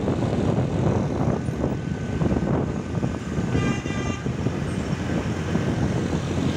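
Wind buffeting the microphone on a moving motorbike, mixed with engine and road noise. A short horn toot sounds a little past halfway.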